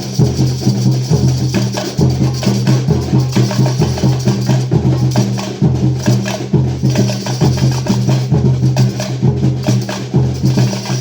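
A live band playing instrumental music in rehearsal: held low bass notes that change every second or so under a steady percussion beat.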